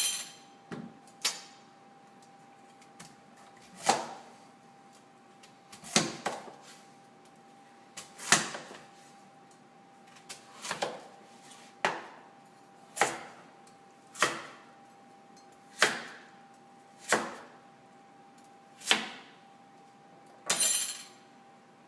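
Chef's knife cutting raw peeled butternut squash into small cubes on a cutting board: about a dozen sharp knocks, one every one to two seconds, over a faint steady hum.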